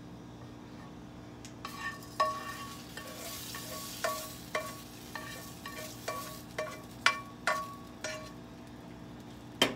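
A cooking spoon taps repeatedly against a nonstick frying pan held over a pot, about two taps a second, and each tap makes the pan ring briefly. This knocks the last rice grains out of the pan. The tapping ends in a louder clatter.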